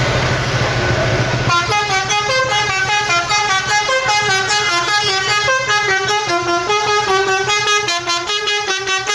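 A bus's basuri musical horn plays a quick tune of short stepped notes, starting about a second and a half in. Before the tune, the bus engine hums under road noise.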